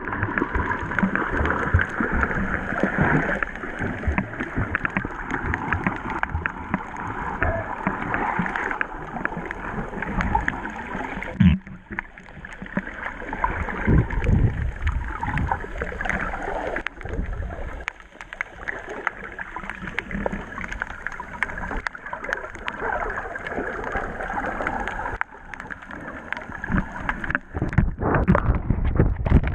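Muffled underwater noise picked up by a camera beneath the surface: water swirling and gurgling with many low thumps, busier and more knocking near the end as the camera moves fast.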